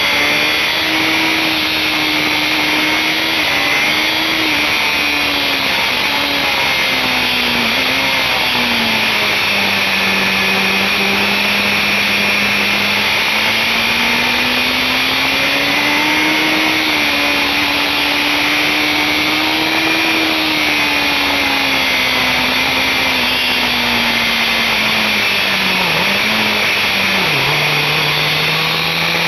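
BMW S1000RR inline-four engine running hard on track, with heavy wind rush over the camera. Its note rises and falls with throttle and gear changes, dropping about eight seconds in and again sharply near the end as the rider brakes and shifts down.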